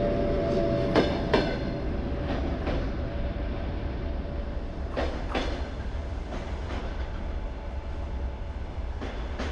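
Russian Railways passenger coaches rolling away along the platform, their wheels clicking over rail joints in quick pairs as each bogie crosses, with a faint whine in the first two or three seconds. The sound slowly fades as the last coach pulls away.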